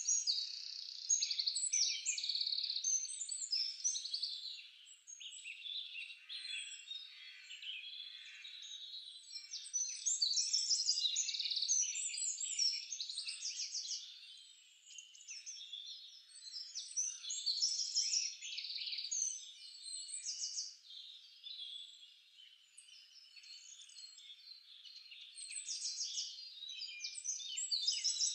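Many small birds chirping and twittering together in a dense, continuous chorus of quick high chirps and trills. It swells and fades over several seconds at a time.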